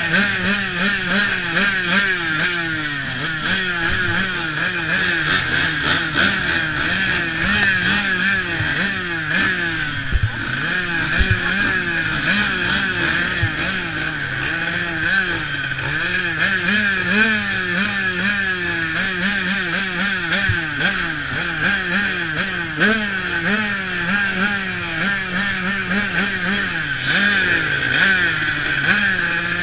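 Motocross bike engine heard close up, revving up and down over and over as the throttle is opened and closed while the bike is ridden slowly.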